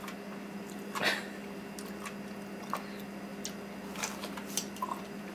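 Soft crunching and squishing of a shaved-ice snow cone being bitten and chewed, in scattered short bursts with the loudest about a second in and several more around four seconds in, over a steady low hum.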